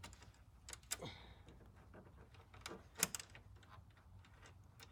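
Scattered light clicks and taps of a bolt being handled and tried against a motorcycle's plastic fairing panel, the sharpest knock about three seconds in.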